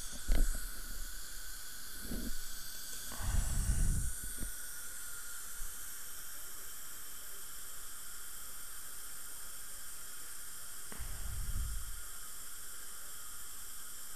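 Steady hiss of a dental saliva ejector suctioning in the mouth, broken by a few dull low thumps.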